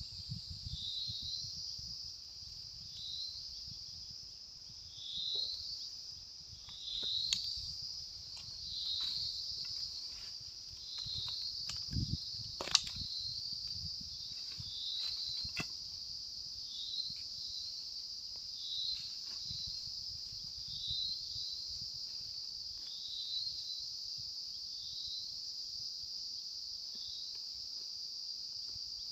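Forest insects: a steady high-pitched drone with short rising chirps repeating every second or two. A few sharp clicks cut through, the loudest about 13 seconds in.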